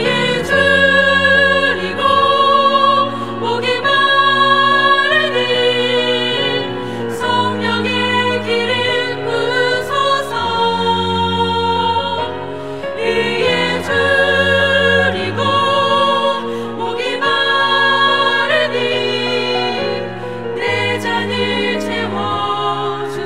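Women's vocal ensemble singing a hymn in Korean in close harmony, holding long notes with vibrato, over a cello playing sustained low notes.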